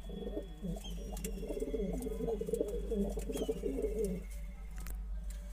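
Domestic pigeons cooing: an unbroken run of low, pulsing coos that stops about four seconds in.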